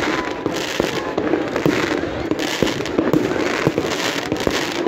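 Aerial fireworks display: a dense, continuous run of bangs and crackles from shells bursting overhead.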